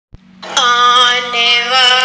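A solo voice opens a naat, Urdu devotional singing, with a long held and ornamented note that enters about half a second in, over a steady low drone.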